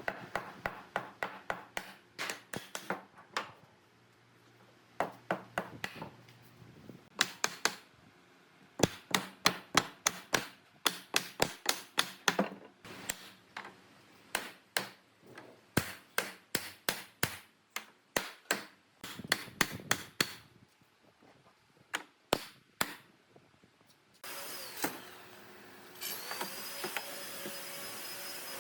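Quick sharp knocks on wood in bursts of several strikes, about three or four a second, with short pauses between the runs. Near the end a power tool starts with a steady rushing noise, and a steady whine comes in about two seconds later.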